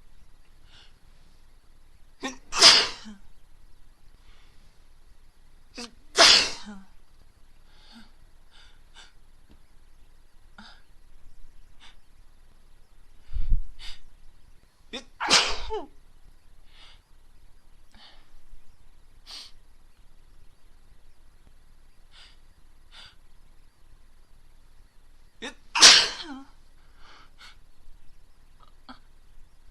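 A woman sneezing: four loud, open sneezes several seconds apart, with faint small sounds between them. A low thump comes just before the third sneeze.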